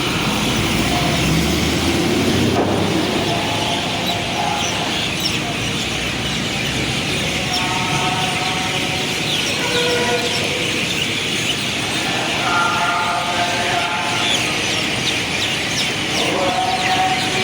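City street ambience: steady traffic noise, with a heavier vehicle rumbling past in the first few seconds. Birds chirp throughout, and brief pitched tones from the street come and go over it.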